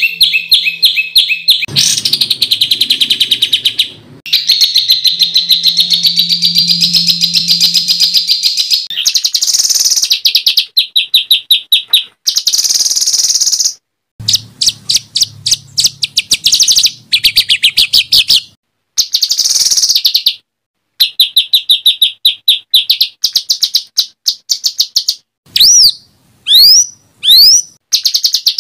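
Songbird masteran (song-tutor) track: loud, harsh runs of rapid repeated notes and trills, the 'tembakan kasar' bursts used to teach competition birds, in segments that start and stop abruptly. Near the end come three quick upward-sweeping whistles.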